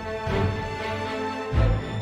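Background music with a heavy bass beat and sustained synth tones.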